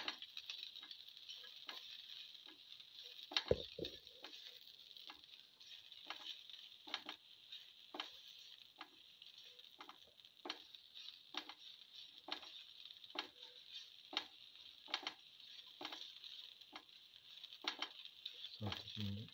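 Shallots and ginger sizzling faintly in hot oil in a frying pan, while a spatula stirs them, clicking and scraping against the pan about once a second. A low thump comes about three and a half seconds in.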